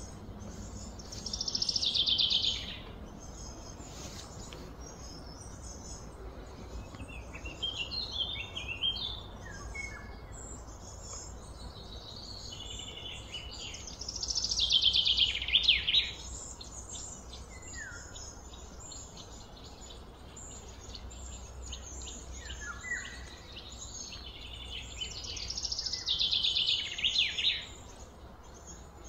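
Birds singing outdoors: a loud, rapid trilled phrase comes three times, roughly every twelve seconds, with shorter chirps between, over a low steady background hum.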